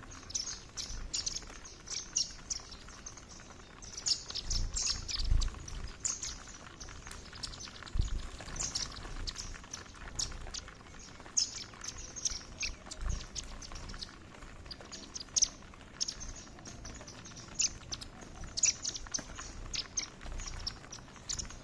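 A group of Indian silverbills giving many short, high chirping calls, scattered irregularly, with a few dull low thumps between them.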